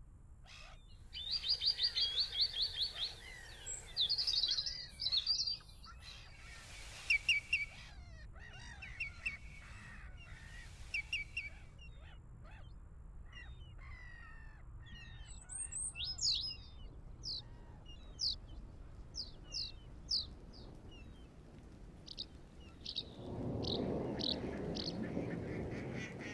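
Wild birds calling in a string of short cuts: quick chirps and rattling trills, then a run of short, high, falling notes repeated about twice a second. Near the end a louder rough noise comes in under the calls.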